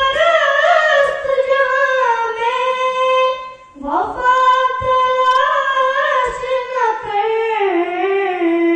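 A woman singing solo and unaccompanied into a microphone: two long phrases of held, ornamented notes with a brief breath between them, the second ending on a long sustained note.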